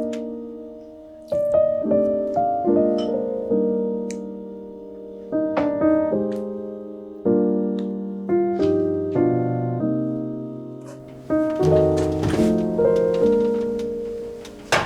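Background piano music: single notes and chords struck every second or so, each ringing and fading. A faint hiss rises behind it in the last few seconds.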